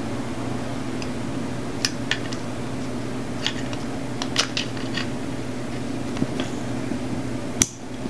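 Small plastic clicks and taps as a wire terminal is worked into a plastic automotive fuse block with a screwdriver, ending about seven and a half seconds in with a sharp snap as it seats. A steady low hum runs underneath.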